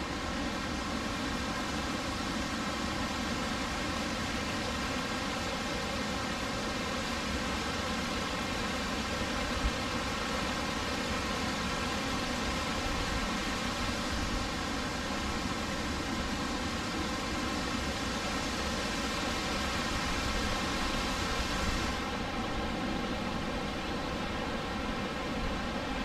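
Steady rushing of water in a river gorge: the even roar of falls and rapids.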